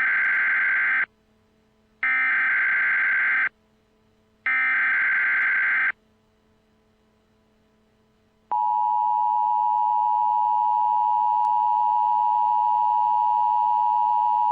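Emergency Alert System tones: three loud bursts of SAME header data, a warbling digital buzz about a second long each, with about a second between them. About two and a half seconds later the steady two-tone EAS attention signal comes on and holds. Together they mark the start of a new emergency alert broadcast.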